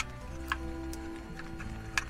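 Background music with a few sharp metallic clicks, the loudest right at the start and at the end, as the metal pot-support arms of a portable butane camping stove are folded out and snapped into place.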